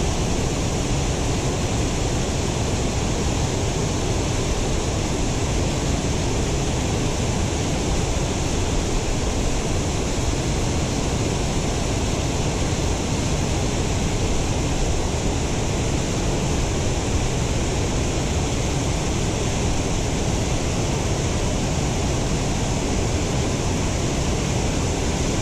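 Steady rushing of water pouring over a spillway waterfall.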